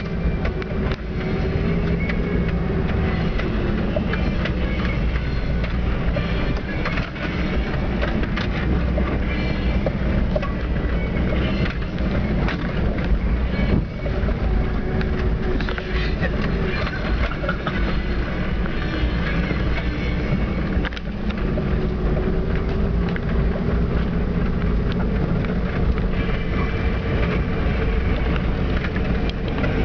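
Toyota FJ60 Land Cruiser's 2F inline-six petrol engine running under load, heard from inside the cab, its note rising and falling a little as it climbs a rough dirt track. Frequent knocks and rattles from the truck jolting over the bumps.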